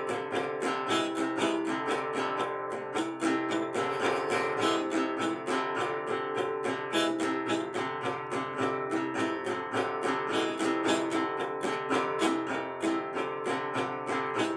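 Acoustic guitar strummed in a steady, even rhythm, with no singing.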